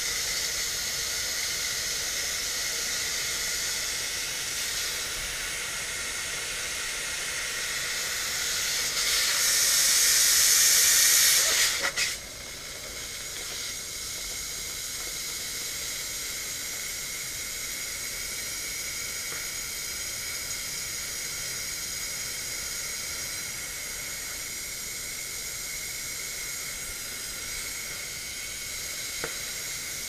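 Pressurized gas hissing as it pushes flush solvent through an ice machine's refrigerant tubing and out into a rag held over the outlet. The hiss swells louder about ten seconds in, then drops suddenly at about twelve seconds to a steadier, quieter hiss.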